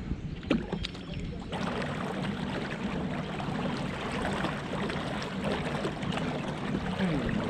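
Water swishing and trickling around a kayak, starting abruptly about a second and a half in and going on steadily, with a faint click just before.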